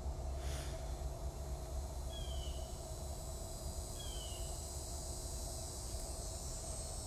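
A bird gives a short, high chirp that falls in pitch, twice about two seconds apart, over a steady low hum.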